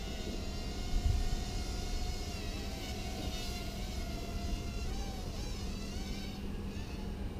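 SPC Maker 90X micro racing quadcopter's motors buzzing in a high whine that rises and falls as the throttle changes, over a low rumbling background. A low thump about a second in.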